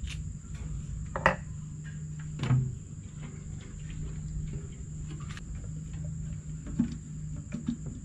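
A few short clicks and knocks as a motorcycle fuel tank and its hose fitting are handled and set back in place, the loudest about a second in and a dull knock about two and a half seconds in. Under them runs a steady low hum and a thin, steady high-pitched whine.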